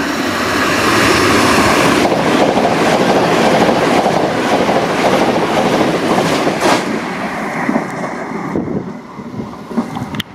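Thameslink Class 700 electric multiple unit passing the platform at speed: a loud rush of wheel and air noise that swells as it arrives, with some wheel clatter on the track, then dies away near the end.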